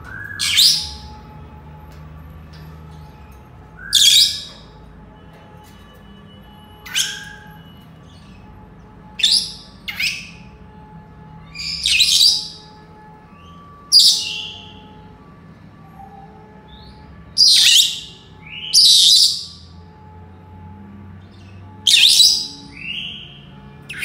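Senegal parrots giving about ten short, loud, high-pitched calls, one every two to three seconds.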